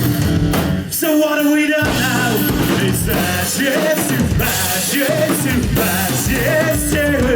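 Live rock band playing the closing bars of a song, with guitars and drums at full volume.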